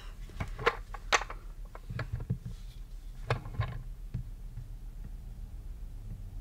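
Scattered light taps and clicks from a small manual die-cutting machine and a measure being handled, several in the first four seconds, over a faint steady low hum.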